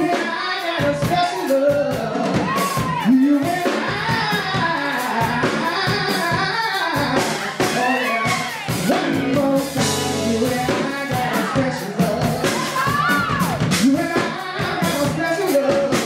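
Live band playing a song, with male lead vocals sung into microphones over drums and electric guitar.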